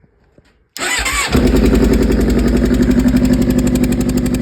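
2007 Suzuki GSX-R600's inline-four engine started on the electric starter a little under a second in, catching within about half a second and settling into a steady, evenly pulsing idle. The engine carries a puffing, air-like noise from a spark plug that has unscrewed itself in its coil well, which the owner first took for an exhaust leak.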